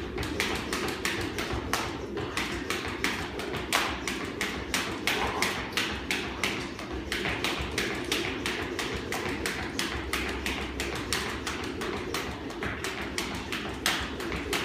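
Beaded jump rope slapping the floor in a fast, even rhythm, with his feet landing on each skip.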